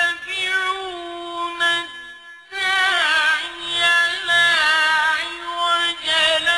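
A man reciting the Qur'an in a melodic, drawn-out chant, holding long notes with wavering ornaments. He pauses for breath about two seconds in, then starts the next phrase.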